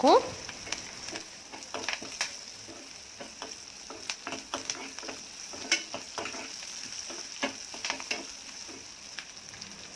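Garlic cloves, shallots and curry leaves frying in sesame oil in a kadai, with a steady sizzle and scattered short clicks and pops.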